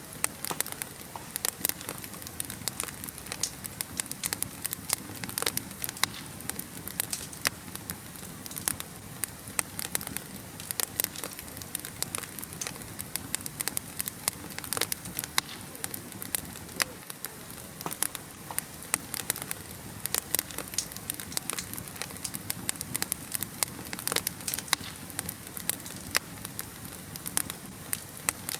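Wood fire burning in a fireplace, with a steady low hiss and frequent irregular sharp crackles and pops.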